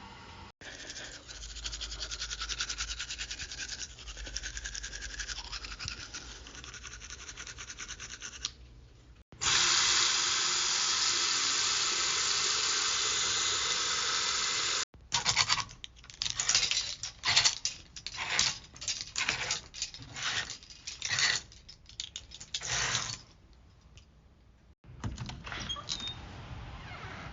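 Teeth being brushed in a bathroom. First comes a steady scrubbing buzz. A loud steady rush, like running tap water, follows for about five seconds. Then come irregular back-and-forth toothbrush strokes that stop about three seconds before the end.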